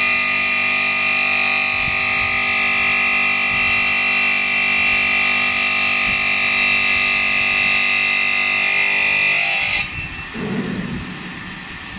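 CNC bridge saw's diamond blade cutting through a stone slab, a loud steady high-pitched whine. About ten seconds in the cutting sound stops abruptly, leaving a quieter rushing noise.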